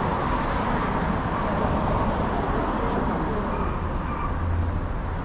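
Road traffic: a steady wash of passing car engine and tyre noise, with a low hum that swells about four seconds in.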